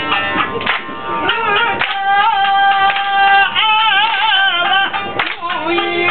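Live shamisen playing with sharp plucked strokes, and a singer holding one long note that bends and wavers from about a second in until near the end, when the plucking comes back.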